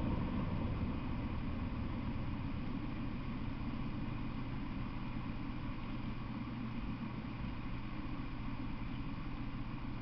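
Rumble of a just-passed freight train dying away in the first second or so, settling into a steady low hum and background noise.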